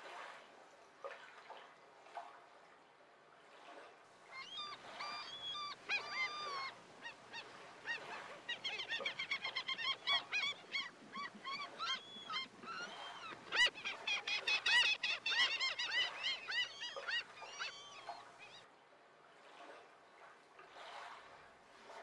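A flock of birds calling, with many short pitched calls overlapping thickly from about four seconds in, loudest a little past the middle. The calls cut off suddenly a few seconds before the end, leaving a faint wash of surf.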